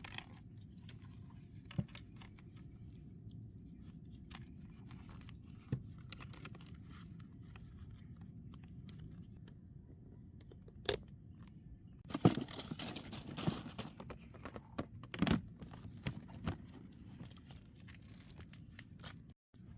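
Scattered clicks, knocks and rattles of small objects being handled over a low steady hum, busiest between about twelve and seventeen seconds in.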